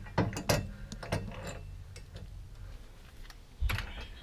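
Irregular light clicks and knocks of bolts, brace and hand tools being handled under a car, with a duller thump about three and a half seconds in.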